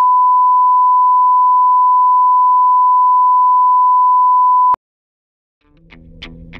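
A steady 1 kHz line-up test tone of the kind that runs with colour bars, with a faint blip about once a second. It cuts off suddenly about three-quarters of the way through, and after a short silence music fades in near the end.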